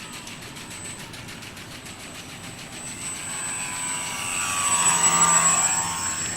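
Aircraft flying past, getting steadily louder from about halfway through and peaking near the end, with its pitch sweeping as it passes.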